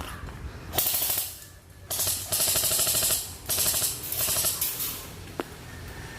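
Airsoft guns firing on full auto in several rapid bursts of a second or so each, made of quick even clicks, with a single sharp click later on.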